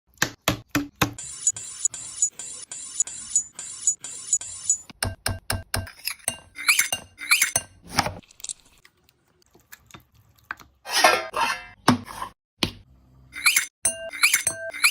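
Kitchen cooking sounds: a run of sharp clinks and knocks of utensils and dishes, with a steady hiss for a few seconds after the start, and music with rising tones near the end.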